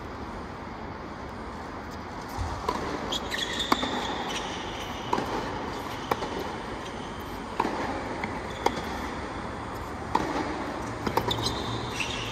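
Tennis ball struck back and forth in a hard-court rally: sharp racket pops about every second or so, from a couple of seconds in, with short high squeaks of shoes on the court between them over a steady arena hush.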